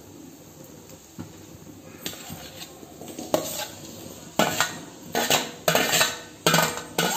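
Chopped onions sizzling quietly in a metal kadai. From about halfway in, a steel spoon scrapes and knocks against a steel plate, pushing chopped tomatoes into the pan, a little under two strokes a second.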